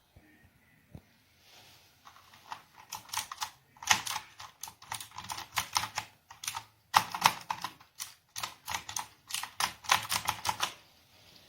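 Typing on an AULA F2088 typewriter-style mechanical keyboard with clicky blue switches: quick runs of keystrokes with short pauses between them, starting about two seconds in and stopping just before the end.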